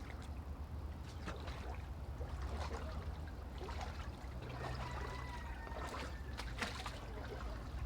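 Floodwater running and splashing over a steady low rumble, with scattered sharp splashes. A brief steady tone sounds about five seconds in.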